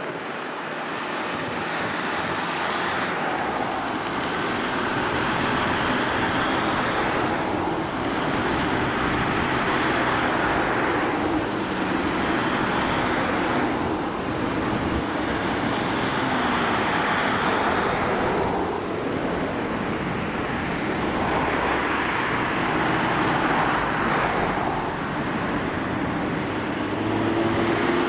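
A convoy of fire-service vans and ambulances driving past one after another, engine and tyre noise swelling and fading as each vehicle goes by, about seven passes in all.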